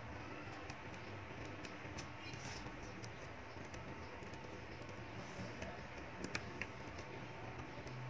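Small magnetic balls clicking together as they are handled and set onto the model, a few scattered faint clicks over a steady hiss, the sharpest pair a little after six seconds.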